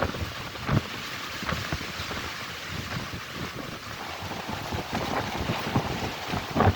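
Wind buffeting the microphone: a steady rushing noise with low thumps from stronger gusts, about a second in and again near the end.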